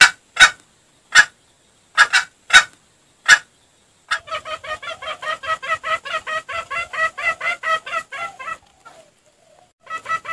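Junglefowl clucking on a lure recording. A few sharp, loud calls are followed from about four seconds in by a fast, even run of clucks, about six a second. The run breaks off for a moment near the end and then starts again.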